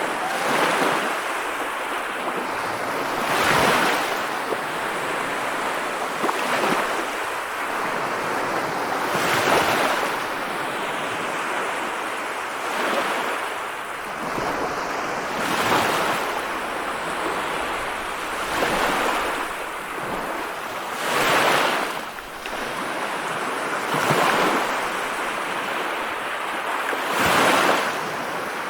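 Ocean waves breaking and washing on a shore, with a louder wave cresting every few seconds over a continuous rush of surf.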